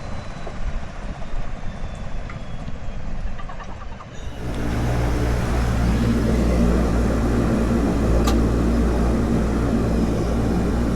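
A rough low rumble that, about four seconds in, switches abruptly to a steady, even engine drone with a low hum, as of a motor running at constant speed.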